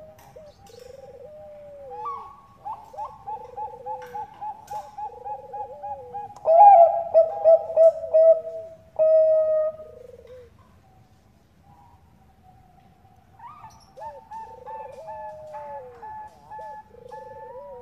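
Zebra dove (Bangkok-strain perkutut) cooing song: rapid runs of short, staccato cooing notes, loudest from about two seconds in until about ten seconds, then a brief lull before softer runs start again near the end.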